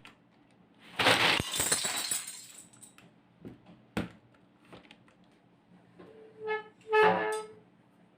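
Hard plastic clattering for about a second and a half, like keycaps being handled, followed by a few scattered single clicks. Near the end come two short pitched squeaks.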